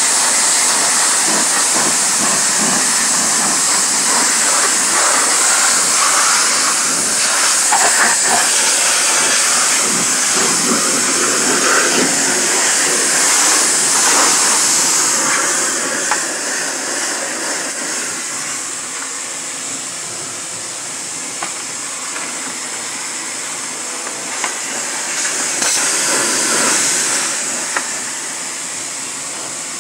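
Pressure washer spraying water, a steady hissing spray that drops a little in level about halfway through.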